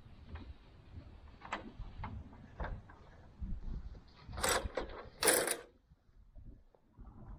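Scattered clicks and knocks of hardware and wooden pieces being handled, with two short, louder scraping rattles about four and a half and five and a half seconds in.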